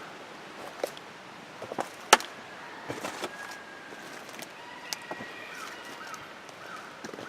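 A bird giving short falling calls, a few times near the end, over scattered clicks and knocks, with one sharp knock about two seconds in.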